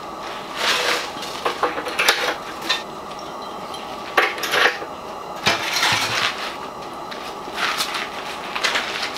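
Parts of a sheet-metal camp wood stove being handled and fitted: irregular light metal clanks, knocks and scrapes, in clusters about a second in, around 2 seconds and again between about 4 and 6 seconds.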